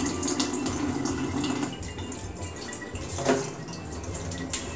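Kitchen faucet running into a stainless steel sink while raw pork chops are rinsed under the stream, water splashing off the meat. The water is louder for the first second and a half, then softer.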